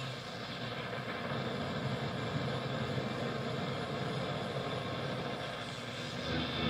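Static and hiss from a Kraco KID-581H AM radio tuned between stations near the top of the AM band. A stronger signal starts to come in near the end.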